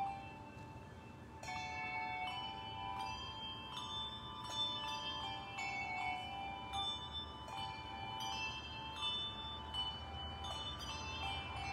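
Handbell choir playing a slow piece: brass handbells rung one after another, each note ringing on and overlapping the next. A brief lull about a second in, then the ringing picks up again.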